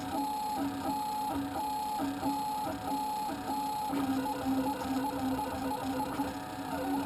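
Stepper motors of a homemade 3D printer whining as the print head moves back and forth: a run of short, same-pitch tones repeating about every 0.6 seconds over a steady low hum. The pattern of tones changes about four seconds in.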